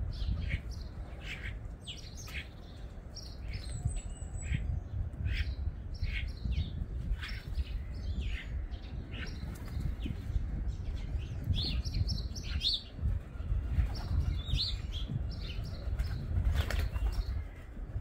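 Garden birds chirping: many short, high calls scattered throughout, over a constant low rumble.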